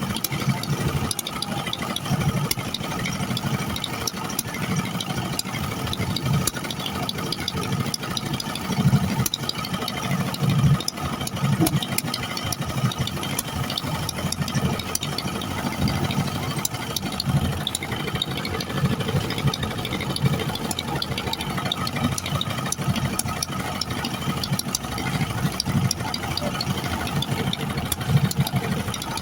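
Boat engine running steadily, with scattered clicks over its low drone.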